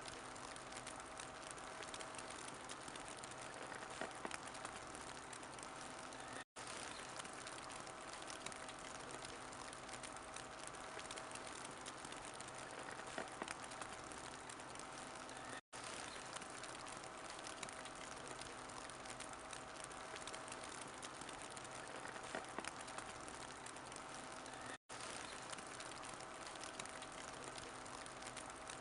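Wood fire crackling in a fireplace: a steady faint hiss with scattered small pops. The recording loops about every nine seconds, dropping out for an instant at each seam.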